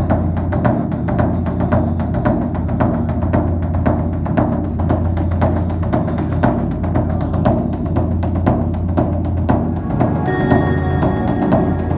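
Background music: a steady, quick percussion beat over a low drone, with held higher notes joining about ten seconds in.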